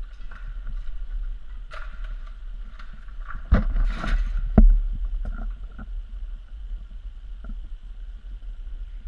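Muffled low rumble and rubbing of a camera being carried along a cave passage, with two loud knocks about three and a half and four and a half seconds in.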